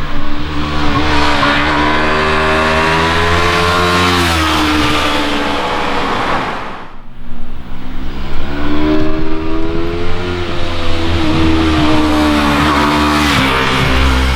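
Yamaha R3's 321 cc parallel-twin engine on its stock exhaust, accelerating hard past twice. Each time the pitch climbs and then drops as the bike goes by: first about four seconds in, again near the end, with a short lull about seven seconds in.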